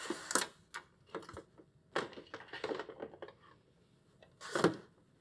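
Rustling, scraping handling noise of an electrical signal cable being pulled through the back of a mini-split indoor unit, in a few short irregular bursts.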